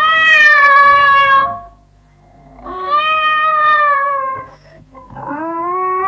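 Domestic cat meowing: three long, drawn-out meows, the third starting about five seconds in and still going at the end.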